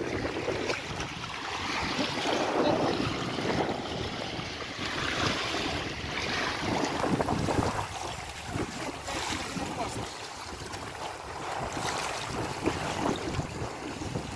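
Strong wind buffeting the microphone, with small waves lapping over stones at the water's edge.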